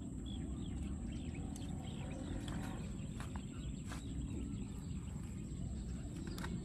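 Outdoor ambience: a steady low wind rumble on the microphone, with faint scattered bird-like chirps, a thin steady high-pitched whine and a few small clicks.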